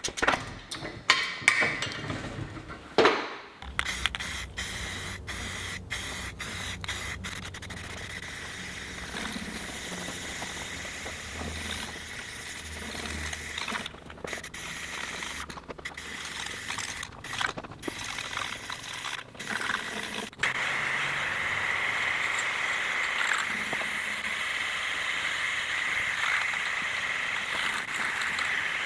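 Aerosol spray-paint can hissing as paint is sprayed onto a steel auger, in long passes broken by short pauses, then steadier and slightly louder for the last third. A few sharp knocks or clicks come in the first few seconds.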